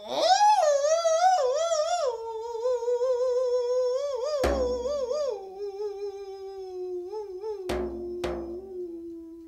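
Solo Siberian singing: a single voice that swoops up at the start, then holds a long, wavering line that slowly sinks in pitch. A drum is struck once about halfway through and twice in quick succession near the end.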